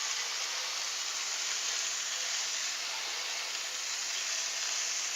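Chicken pieces sizzling steadily on a hot flat-top grill, freshly basted with soy and ginger sauce: an even, unbroken hiss.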